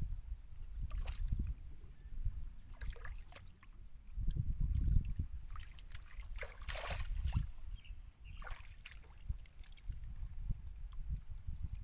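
Hands sloshing and splashing in shallow muddy water while groping through the mud for fish, in short bursts every second or two, over a steady low rumble.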